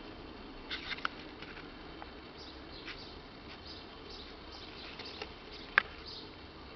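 Small scratches and clicks of a British shorthair kitten playing with a wand toy on a fleece blanket, over a faint steady hiss. There is a little cluster of clicks about a second in and a single sharper click near the end.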